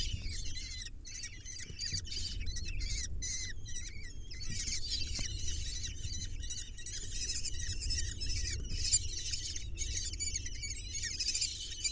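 Kestrel nestlings begging at feeding time: many high, rapid, overlapping chirping calls that grow denser about four seconds in, over a low steady rumble.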